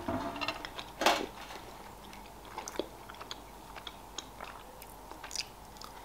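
Close-miked chewing of soft sweets, with small wet mouth clicks and smacks scattered through, and a brief louder noise about a second in.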